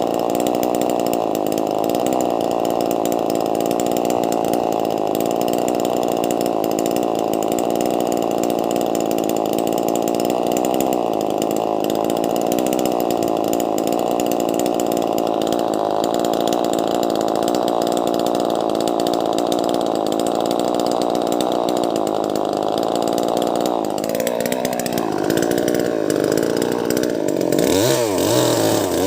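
Wagner 580 two-stroke chainsaw with a 16-inch bar, running at a steady pitch under load as it cuts lengthwise into a log about 70 cm thick. About 24 seconds in the note changes, and near the end the engine speed swings up and down several times.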